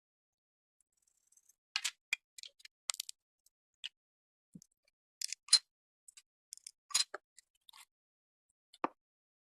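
Slime being worked by hand while paint is mixed in: irregular sticky clicks and small pops, in clusters with short silent gaps.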